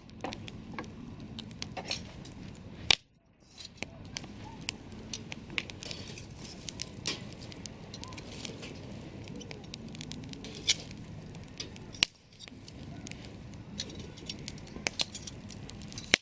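Wood campfire crackling, with frequent sharp pops over a steady hiss of burning. The loudest pop comes about three seconds in. The sound drops out briefly just after that pop and again about twelve seconds in.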